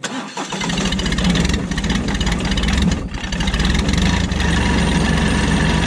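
Massey Ferguson GC1723E compact tractor's diesel engine running loud and steady under load as the tractor works in the dirt, starting and stopping abruptly.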